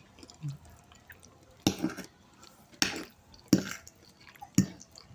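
A person chewing soft food, with four sharp, wet mouth clicks spaced unevenly about a second apart.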